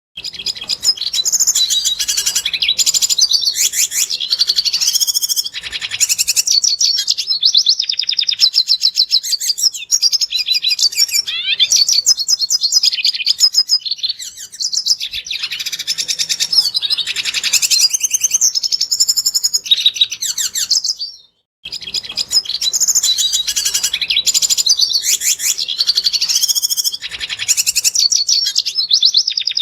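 Red siskin singing: a long, fast, high-pitched twittering song of trills and chatter. It starts abruptly and breaks off for a moment about two-thirds of the way through before resuming.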